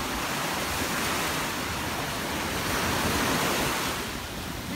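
Ocean surf washing in the shallows, with wind rushing over the phone's microphone: a steady, even hiss that swells slightly in the middle.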